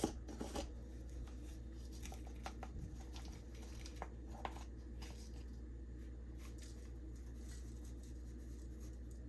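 Faint scattered clicks and taps of all-purpose seasoning being shaken out of its container over raw chicken, over a steady low electrical hum.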